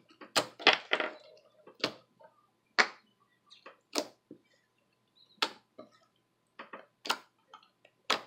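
Thick fluffy slime made from school glue, cornstarch and borax being kneaded and squeezed by hand, giving sharp clicking pops at irregular intervals, roughly one a second, as air pockets in the slime burst.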